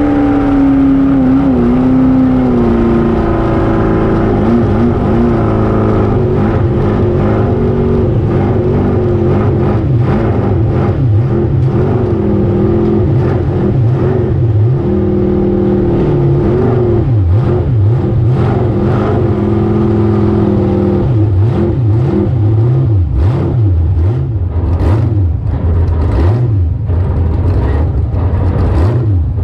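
Race jet boat engine running hard at speed, its pitch rising and falling as the revs change. Repeated short buffets and slaps break in over the engine, coming thicker in the last several seconds.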